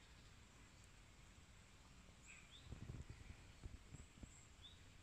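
Near silence outdoors, with a few faint short bird chirps and, from about three seconds in, soft low rustles and thumps.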